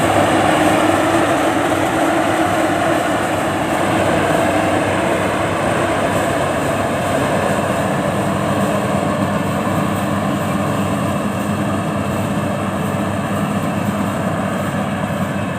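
Rice combine harvester running steadily, a loud continuous engine drone.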